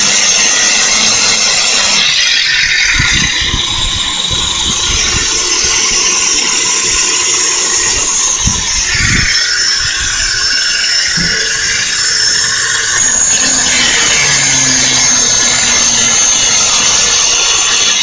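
4.5-inch Chicago Electric angle grinder running and grinding down a metal head: a high motor whine over a hissing scrape. The sound shifts several times as the disc bites and eases.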